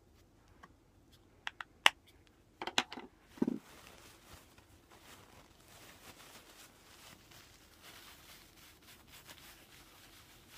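A few sharp clicks and taps in the first few seconds, then a blush brush rubbing steadily and faintly on the cheek.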